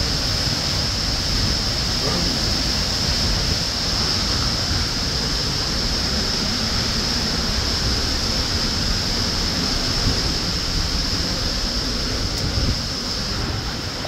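Waterfall's steady rush of falling water crashing into its plunge pool, an even, unbroken noise.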